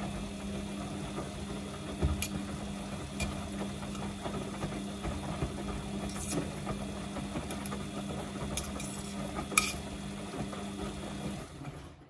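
Samsung front-loading washing machine tumbling its wet load during the prewash: the drum motor hums steadily as the laundry turns, with a few sharp clicks, and the drum stops shortly before the end.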